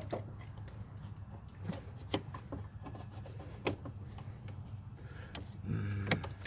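Scattered sharp clicks and knocks of hands working a plastic radiator hose elbow and its quick-disconnect clip, over a steady low hum. A short pitched sound comes near the end.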